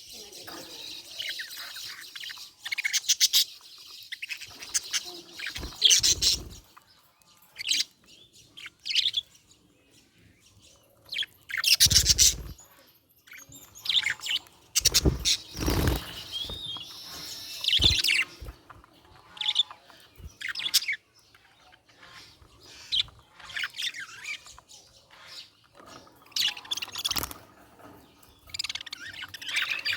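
Budgerigars chirping and chattering in short, broken bursts with pauses between them, a few of the bursts louder than the rest.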